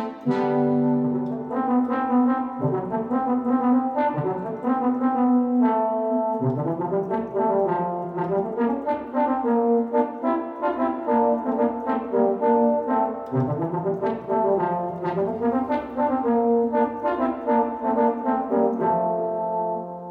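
Yamaha DX7 FM synthesizer playing a brass-like patch: sustained chords over a moving lower line, dying away near the end.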